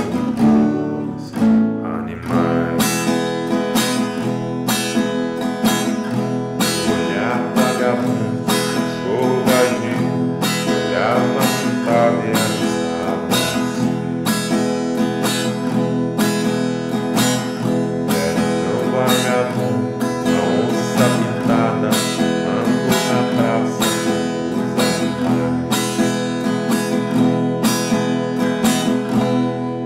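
Steel-string acoustic guitar strummed in a steady rhythm on a held E major chord, the same chord ringing through every stroke; the strumming dies away near the end.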